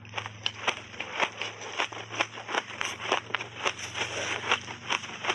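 Close-miked chewing of a mouthful of frozen shaved ice, a quick run of sharp crunches about four a second, over a faint low hum.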